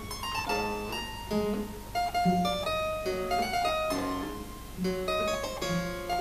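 Harpsichord music: a quick line of plucked notes over a lower part.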